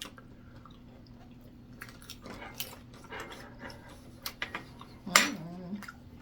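A person biting into and chewing pierogies, with scattered wet mouth clicks and smacks. About five seconds in comes a brief, loud vocal sound lasting under a second.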